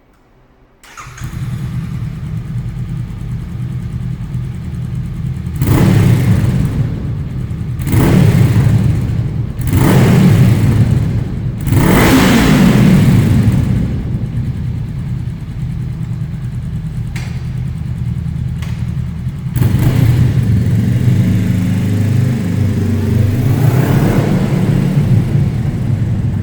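2023 Honda CB500F's parallel-twin engine through a Mivv GP Pro slip-on exhaust with the dB killer removed. It starts up about a second in and idles, is blipped up in four sharp revs, then after a stretch of idle is revved again in a longer burst near the end.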